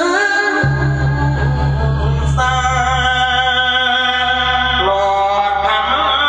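A man sings a melodic chanted verse in long, held, slightly wavering notes, over a low steady hum that comes in about half a second in.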